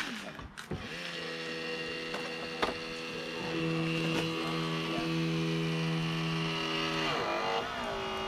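Motor of a powered hydraulic rescue tool running with a steady whine, with a single sharp click a couple of seconds in; the pitch drops and settles lower about seven seconds in.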